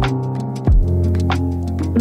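Background music: held bass notes and chords over a beat, with a heavy drum hit about two-thirds of a second in and light ticking percussion.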